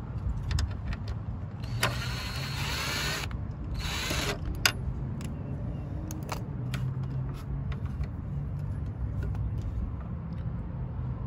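Cordless drill driving screws into a plastic mirror housing, its motor whirring in two short runs about two and four seconds in, with small clicks of handling, over a steady low rumble.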